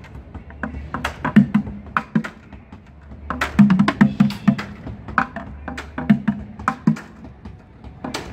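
Background music with a percussive beat: sharp woodblock-like clicks over a repeating low bass line.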